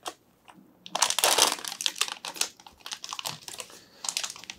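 Metallised anti-static bag crinkling and crackling as it is opened by hand, starting about a second in and loudest soon after, then lighter rustles near the end.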